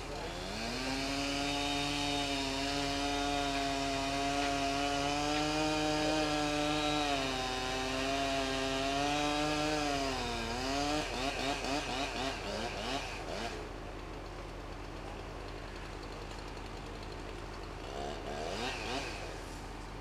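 Chainsaw running at high, steady revs for about ten seconds. Its pitch sags and recovers around ten seconds in, then it runs unevenly at lower revs and stops about thirteen seconds in.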